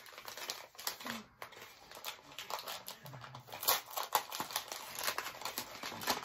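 A small advent-calendar gift being unwrapped by hand: packaging rustling and crinkling, with irregular small clicks and taps.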